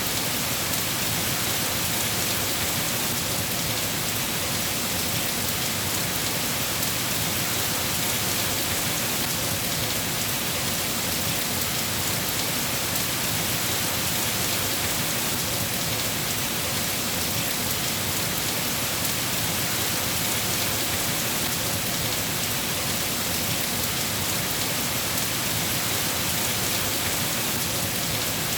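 Steady, heavy rain falling on surfaces, an even hiss without pauses.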